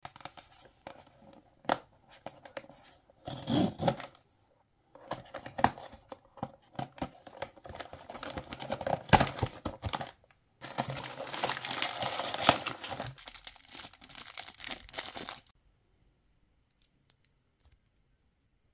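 Hands opening a small cardboard blind box and handling its plastic inner bag: crinkling and tearing in several bursts, with light taps at the start. The last three seconds are near silent.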